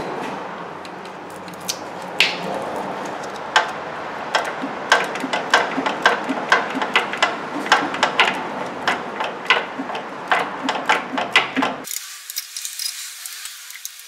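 Hand ratchet clicking as it works a starter bolt, a run of sharp metallic clicks about two to three a second over a steady low background noise. The background cuts off suddenly near the end.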